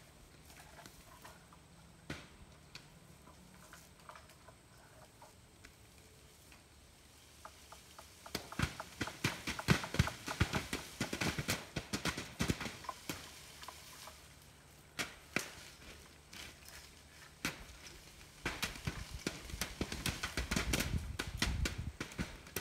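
Apple tree branches shaken with a long picking pole, wild apples dropping through the leaves and thudding onto a plastic tarp. After a quiet start, a dense flurry of knocks and rustling comes about eight seconds in, scattered single knocks follow, and a second flurry comes near the end.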